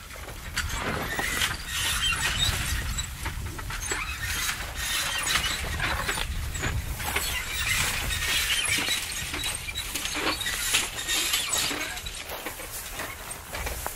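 Farm machinery working: a low rumble under continuous clattering and crackling.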